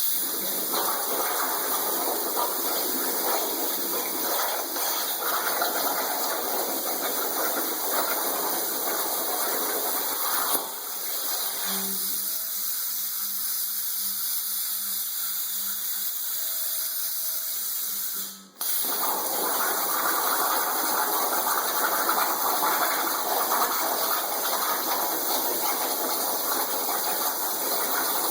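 CNC plasma torch cutting submerged in a water table: a steady hissing, bubbling rush of water and air. It drops away for several seconds in the middle, leaving a faint hum and two short beeps, then starts again.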